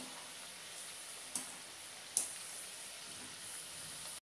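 Vegetable Manchurian balls deep-frying in hot oil in a wok, a steady sizzle. A metal spider strainer gives two light clicks against the pan about a second and a half and two seconds in. The sound cuts off abruptly near the end.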